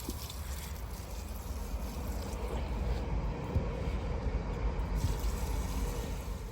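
Water pouring and trickling steadily, a little louder in the middle.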